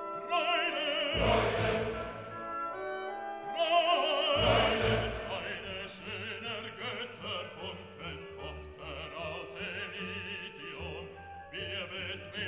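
Background music: an operatic piece, a singer with a strong vibrato over an orchestra, swelling loudly twice.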